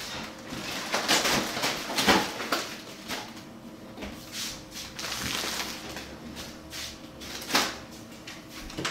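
Plastic zip-top bags of wrapped sandwiches rustling as they are packed into a pull-out freezer drawer, with a series of short knocks and bumps.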